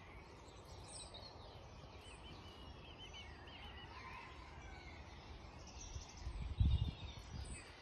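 Faint birdsong, short warbling chirps, over quiet outdoor ambience, with a brief low rumble near the end.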